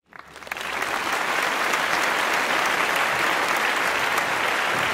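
Audience applause, many hands clapping, swelling in over the first half second and then holding steady.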